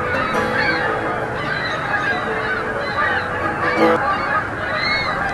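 A flock of Canada geese honking, many calls overlapping without a break.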